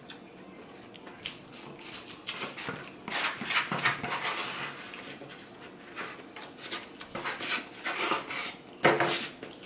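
A person slurping and sucking the last of the food from a foam takeout container held to the mouth, with the container rubbing against the lips. Several noisy slurps, the loudest near the end.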